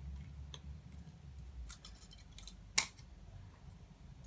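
Light clicks and scrapes of hand tools working on an electrical plug, with one sharp snip about three seconds in.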